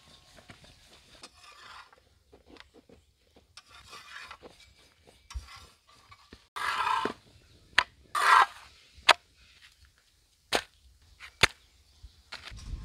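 Wooden rolling pin rolling out chapati dough on a round rolling board: soft rubbing strokes, two louder scraping strokes around the middle, and a few sharp clacks of the pin against the board in the second half.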